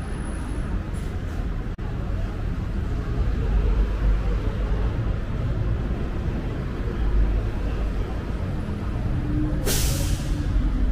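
Steady low rumble of city street traffic, with a short, loud hiss of a heavy vehicle's air brakes releasing near the end.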